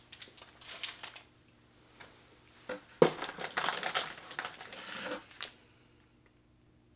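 Rustling and crinkling of packaged snacks and cardboard as hands rummage through a snack box and pull out a foil-wrapped wafer bar, with a denser stretch of crinkling from about three seconds in.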